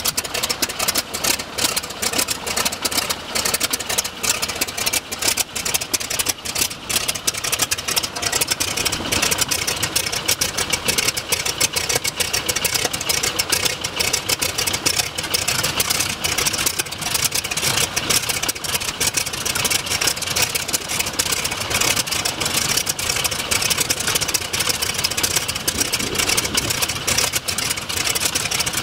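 Stearman biplane's radial engine idling on the ramp, a steady, rapid, unchanging pulsing with the propeller turning.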